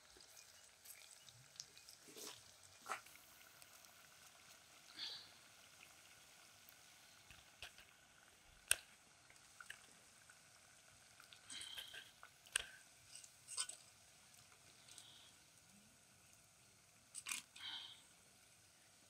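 Cassava pieces deep-frying in oil in a metal pot, a faint steady sizzle, with scattered sharp clicks of a fork against the pot, the loudest about halfway through.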